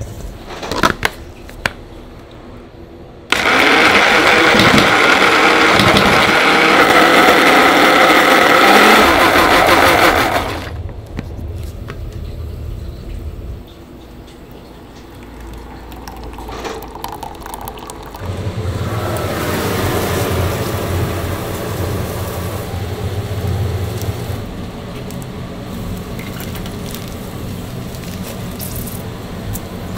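A knife sawing through the crisp crackling skin of a roast porchetta roll. A loud whirring noise starts suddenly a few seconds in and cuts off about seven seconds later, and a lower hum runs through the second half.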